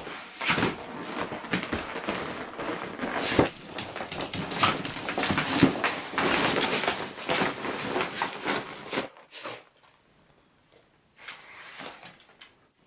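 Crinkly plastic shell of a giant prop cockroach rustling and crackling as a dog bites, tugs and wrestles it on a hardwood floor, with knocks and thumps mixed in. It stops about nine seconds in, and a shorter, fainter rustle comes near the end.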